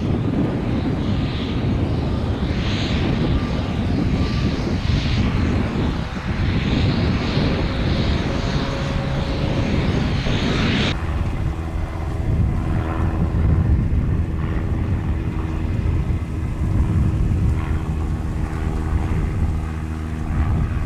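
Cessna 152's four-cylinder Lycoming piston engine and propeller running at low taxi power, heard from outside the aircraft. Wind buffets the microphone during the first half. About halfway through the sound changes abruptly to a steadier engine hum with a clear low drone.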